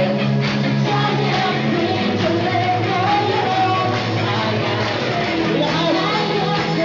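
Band playing an upbeat rock worship song, with voices singing over the instruments.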